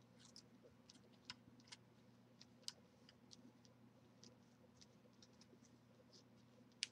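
Near silence with faint, irregular light clicks and ticks of hands handling paper on a metal birdcage, over a low steady hum; one sharper click comes near the end.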